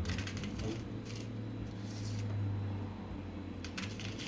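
Knife slicing a red onion thinly: a handful of short, crisp cuts, bunched in the first second and again near the end with a pause between.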